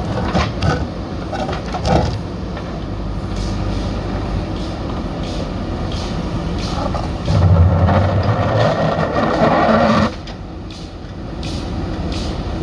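Backhoe loader's diesel engine running, with a few sharp knocks in the first two seconds. It grows louder from about seven seconds in, then drops back abruptly around ten seconds.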